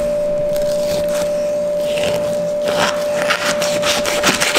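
Chef's knife sawing through raw bluefin tuna loin down to a plastic cutting board: rapid back-and-forth scraping strokes that start about three seconds in. A steady thin hum-like tone runs underneath.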